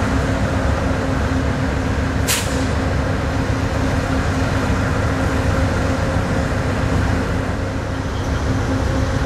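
Amtrak GE P42DC diesel locomotive idling with a steady hum and rumble, and a short, sharp hiss of air about two seconds in.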